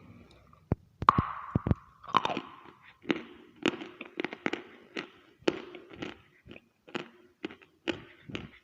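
Snoring: short irregular snorts and clicks, about two a second, with a long breathy rasp a second or so in.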